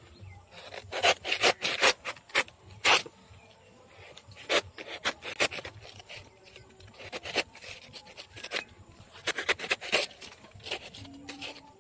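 Irregular clusters of sharp scraping and rustling strokes among wet leaves and dry banana leaf sheaths at the base of a banana plant.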